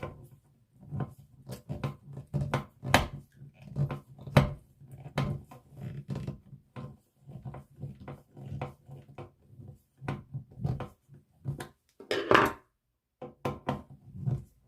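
Irregular small clicks and knocks of a wall toggle switch, its mounting screws and screwdriver being handled while the switch is worked loose from the electrical box. There is a louder scrape about twelve seconds in, over a faint steady low hum.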